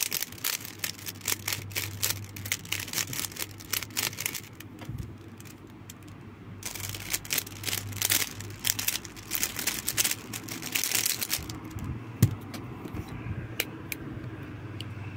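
Plastic 3x3 speed cube being turned fast, its layers clicking and clacking in quick runs of turns, with a pause of about two seconds in the middle. A single dull thump comes about twelve seconds in as the cube is set down on the desk, followed by a few stray clicks.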